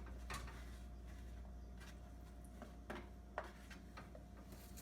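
Quiet room tone with a low steady hum and a few faint, short clicks and taps.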